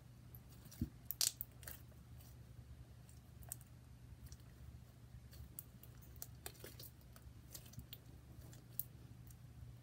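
Purple slime with coins kneaded into it being squeezed and stretched by hand: faint, scattered sticky clicks and pops, a few louder ones about a second in.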